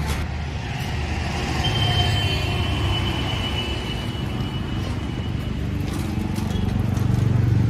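Road traffic going by, with a thin steady high tone for a few seconds in the middle and a vehicle's rumble growing louder near the end.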